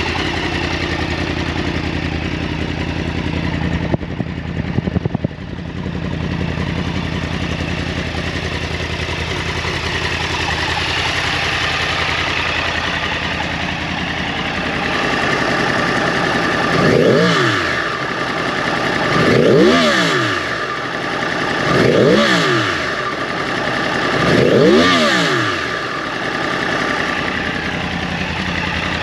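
2009 Yamaha R1's crossplane inline-four, with its under-tail exhausts, idling, with a brief patch of clicking about four seconds in. Later it is revved four times, about two and a half seconds apart, the pitch rising quickly and falling back to idle each time.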